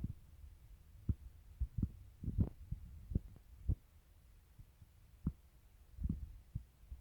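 Irregular dull low thumps over a faint low rumble, a cluster of them about two seconds in and others scattered through.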